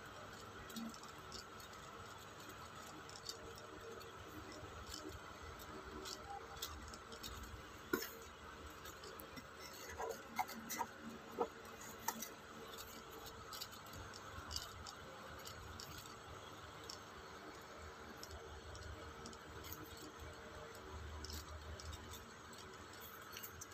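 Faint handling noises from a paper instruction sheet and a cardboard watch box being handled: scattered light clicks and taps, with a few sharper clicks about ten seconds in, over a steady background hum.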